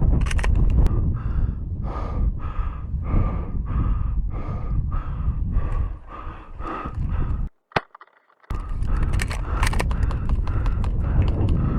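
Rhythmic footsteps of a person walking, about one and a half steps a second, over a steady low rumble. The sound cuts out for about a second near eight seconds in, with a single click, then the steps resume.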